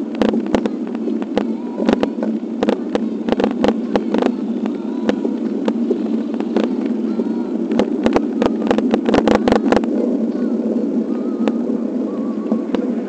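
Steady rushing wind and road noise on a bicycle-mounted camera riding over wet pavement, broken by frequent sharp clicks and knocks until about ten seconds in, then a smoother rush as the bike slows.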